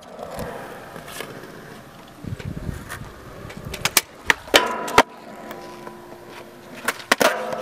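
Skateboard wheels rolling on concrete, broken by several sharp clacks of the board popping and landing. The loudest clacks come a little past the middle and near the end, some followed by a short ring.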